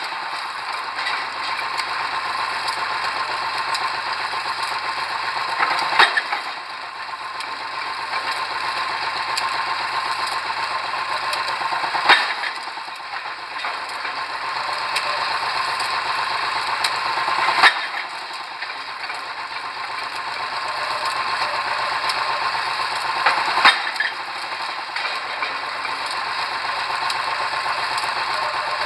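Drop-hammer pile driver striking a pile four times, about once every six seconds, over the steady running of the rig's engine.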